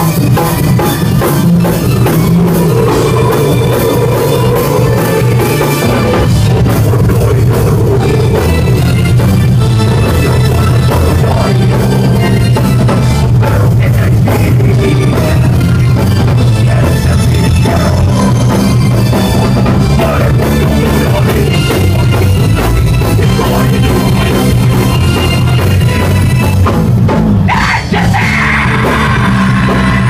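Heavy metal band playing live and loud, drum kit and guitars together. There is a short drop about 28 seconds in before the band comes back in.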